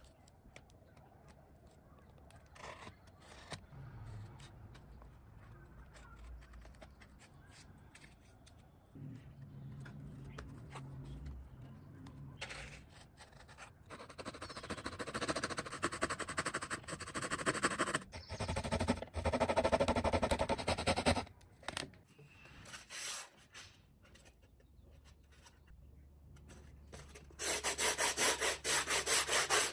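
Quiet handling of foam pieces at first. Then, about halfway through, a small metal file rasps across thermocol (expanded polystyrene) in quick strokes for several seconds. Near the end, sandpaper rubs fast along the edge of a foam sheet.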